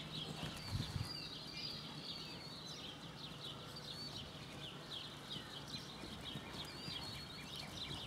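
Many small birds chirping continuously, with the soft hoofbeats of a horse loping on arena sand underneath.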